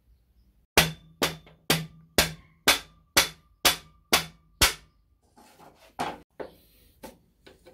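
Drum-led music: a steady beat of sharp hits, about two a second, over faint held tones. About five seconds in it thins to a few scattered, softer hits.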